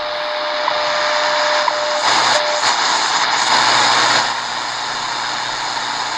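Shortwave static from a Tecsun R-9700DX portable radio's speaker, carrying a time-signal station's steady tone with a tick about once a second. About two seconds in, the tone cuts off and louder hissing static takes over, then settles to a steady hiss.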